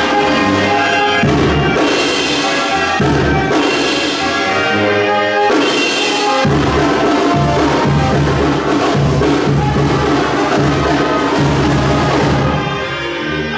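Brass band music: brass instruments playing a tune over drums and percussion.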